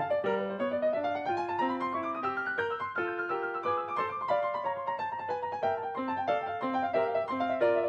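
Background piano music: quick runs of notes climbing and falling over a lower line of bass notes.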